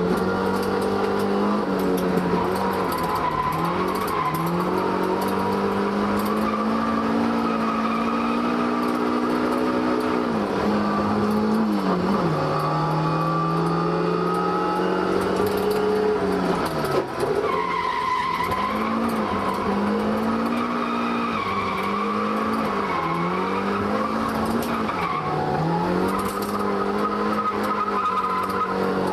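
Toyota AE85 Sprinter Trueno's four-cylinder engine running at high revs through a rusted, holed Trust muffler while drifting. The pitch drops briefly every few seconds as the throttle is lifted, then climbs back, with tyres squealing in the slides.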